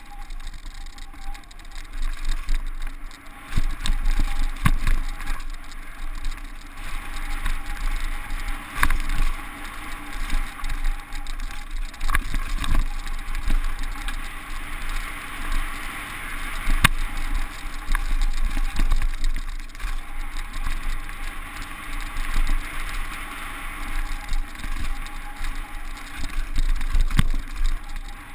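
Downhill mountain bike running fast over a dirt trail: a steady rush of wind and tyre noise, with the bike rattling and sharp knocks now and then from bumps in the ground.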